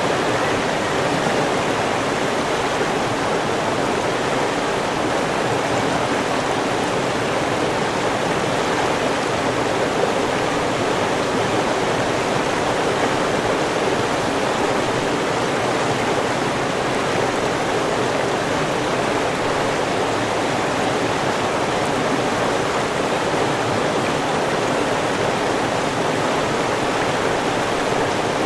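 River water flowing and rushing over rocks, a steady even rush without breaks.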